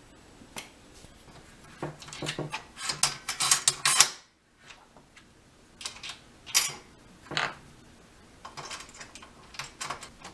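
Clicks and metallic clinks of bolts, washers and nuts and an aluminum tilt-mount bracket handled against a solar panel's aluminum frame as they are fitted by hand. A dense run of clatter stops abruptly about four seconds in, followed by scattered single clicks.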